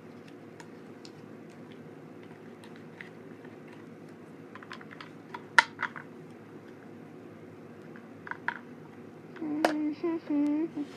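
Scattered light clicks and taps, with a few sharper ones about halfway. Near the end comes a brief voice-like sound of a few short pitched notes.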